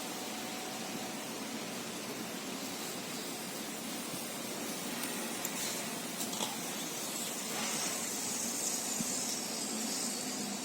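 Steady hiss of R22 refrigerant gas flowing from the tank through the gauge hoses into a split-type aircon during its initial charge, growing louder about seven seconds in.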